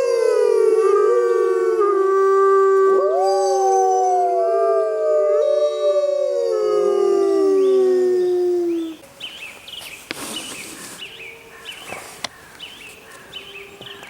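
Several Mackenzie Valley wolves howling in chorus, long overlapping howls, some held steady and others gliding up and down in pitch. About nine seconds in the howls stop, leaving only faint short high calls.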